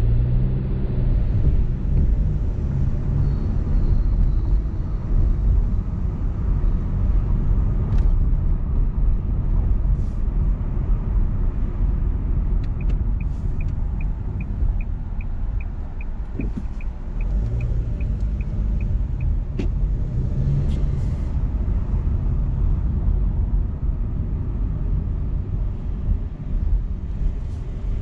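Car driving on city streets, heard from inside the cabin: a steady low road and engine rumble, with a light regular clicking about three times a second for several seconds past the middle and again near the end.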